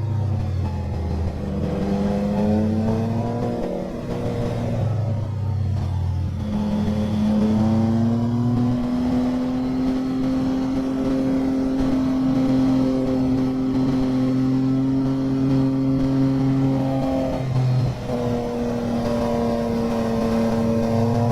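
Motorcycle engine running hard along a winding road, its pitch climbing, holding and dropping several times as the throttle opens and closes and the gears change, with a brief dip in level about 18 seconds in.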